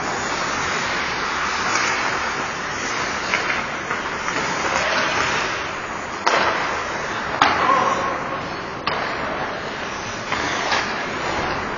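Ice hockey play on an indoor rink: a steady scrape and hiss of skates on the ice, broken in the second half by a few sharp clacks of sticks and puck.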